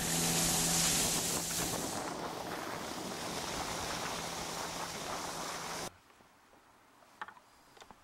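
Inflatable boat under way at speed: a steady outboard motor note under loud rushing water and spray along the hull, with wind on the microphone. It cuts off abruptly about six seconds in, leaving a quiet background with a few faint clicks.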